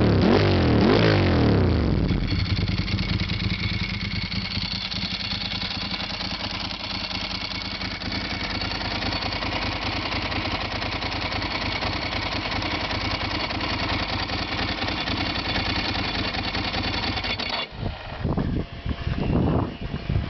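Ducati 748 S V-twin engine heard through carbon 45 mm Termignoni slip-on mufflers: revved in quick blips at first, then running steadily. About three seconds before the end the steady note breaks off suddenly and a couple more quick revs follow.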